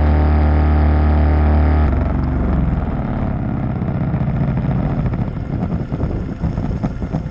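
Boat motor running with a steady low hum; about two seconds in it changes to a rougher, noisier rushing sound that wavers until the end.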